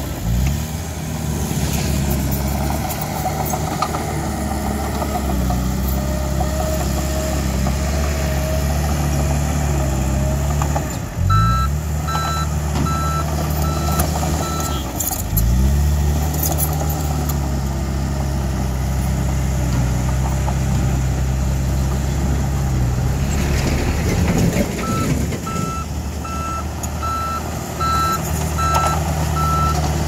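Diesel engine of a Komatsu D31PX crawler bulldozer running close by, revving up twice, about a third of the way in and again about half way. A reversing alarm beeps at about two beeps a second for a few seconds around the first rev and again near the end.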